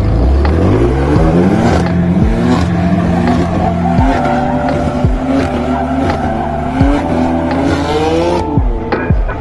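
White BMW M4 coupe drifting: the engine revs climb in repeated rising sweeps and drop back several times as the driver shifts or lifts, with the tyres squealing as they slide.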